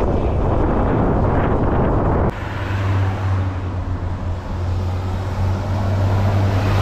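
Wind rushing over a bike-mounted camera's microphone while freewheeling downhill on a bicycle. About two seconds in it cuts abruptly to a steadier wind noise with a strong low steady hum underneath.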